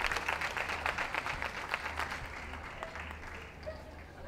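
Audience applauding, the clapping thinning out and fading over the second half.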